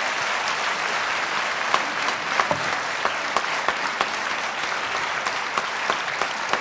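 Theatre audience applauding steadily, with single sharp claps standing out from the even clatter.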